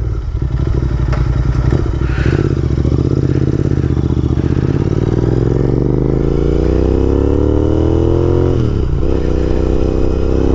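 Parallel-twin motorcycle engine and exhaust pulling away under hard acceleration. Revs hold low at first, climb steadily from about four seconds in, drop briefly for a gear change near the end, then climb again.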